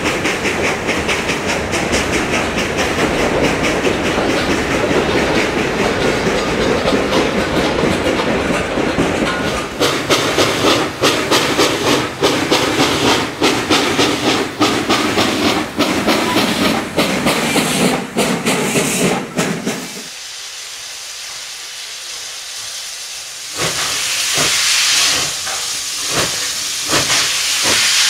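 Freight cars rolling past with wheels clattering over the rail joints, then steam locomotive Western Maryland 734, a 2-8-0, working with steam hissing and heavy exhaust beats. About twenty seconds in the sound drops suddenly to a quieter hiss. A few seconds later loud steam hissing returns, with more beats.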